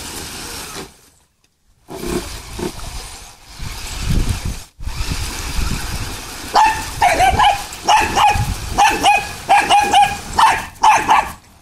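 A dog barking over and over, about two sharp barks a second, starting about six and a half seconds in. Before that there is a low rumble that breaks off a few times.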